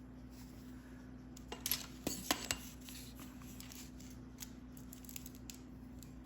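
Pieces of chert clacking against each other as they are handled, a quick cluster of sharp clicks about a second and a half in, then a few light ticks.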